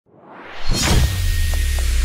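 Logo-intro sound design: a rising whoosh swells out of silence into a heavy bass hit about three quarters of a second in, which carries on as a deep low drone under a hiss.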